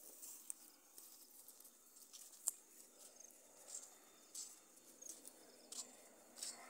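Faint footsteps and rustling of leaves and grass as people walk along a dirt garden path: irregular soft clicks, the sharpest about two and a half seconds in, over a faint outdoor hiss.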